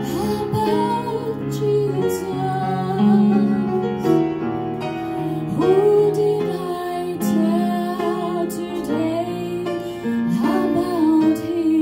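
A woman singing a slow song into a handheld microphone, her voice gliding over long held notes, accompanied by an electronic keyboard playing sustained chords.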